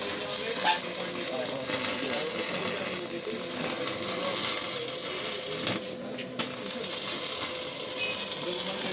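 Stick-welding arc from a small 200-amp welding machine burning down a thick number-8 electrode: a continuous crackle and sizzle with a steady tone under it, briefly dropping out about six seconds in.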